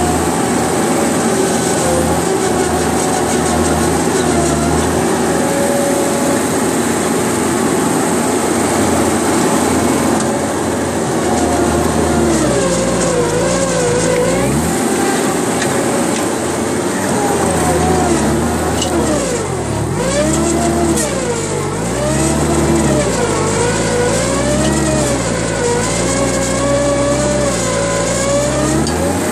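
Engine of a yellow earthmoving machine, heard from the operator's seat. It runs fairly steadily for about the first twelve seconds, then its pitch rises and falls again and again as the machine works dirt.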